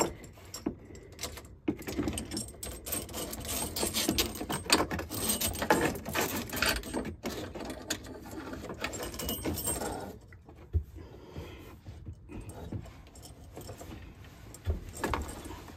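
Irregular clinks, rattles and rustles of faucet supply hoses and a plastic mounting ring being handled and threaded up through a sink hole, busiest for the first ten seconds and lighter after.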